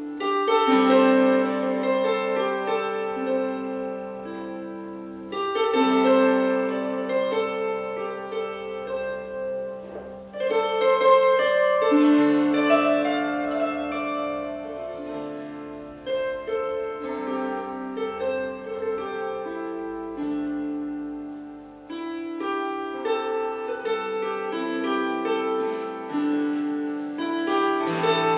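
Wire-strung early Irish harp, a Trinity College harp replica, played solo: plucked notes and chords that ring on long and overlap as they fade, in slow phrases that start afresh with a louder cluster of notes about every five or six seconds.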